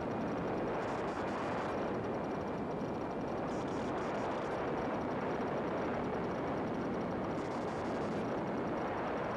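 Cessna 182 Skylane's piston engine and propeller running steadily on final approach: a constant dense drone mixed with rushing airflow.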